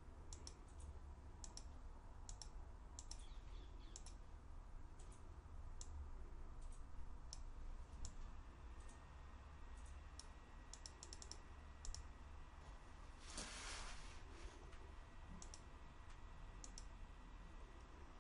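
Faint computer mouse clicks, some single and some in quick runs, over a steady low hum, with a short hiss about two-thirds of the way through.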